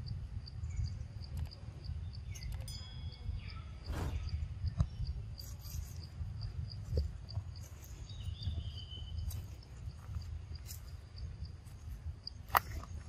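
Insect chirping steadily, a high pulse repeating about three times a second, over a low rumble. A few faint chirps and clicks come through, with one sharp click near the end.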